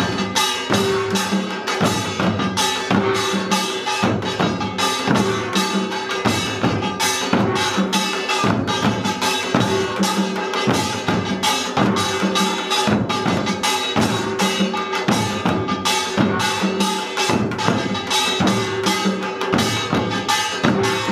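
Korean pungmul drum ensemble playing pangut: janggu hourglass drums and buk barrel drums beaten together in a dense, steady, driving rhythm.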